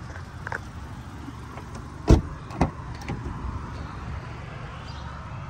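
Doors of a 2016 Honda CR-V being worked: a car door shuts with a heavy thump about two seconds in, followed half a second later by a second, lighter clunk, over a steady low rumble.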